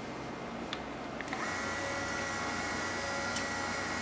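Small electric motor of a motorized 1-inch aluminum venetian blind, starting about a second in and running with a steady high whine as the blind lowers. A light click comes just before it starts.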